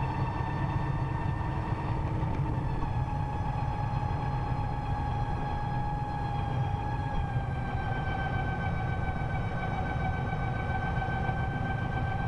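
Vectrix VX-1 electric maxi-scooter's straight-cut reduction gear whining, its pitch sinking slowly as the bike slows, over a steady low rumble of road and wind noise.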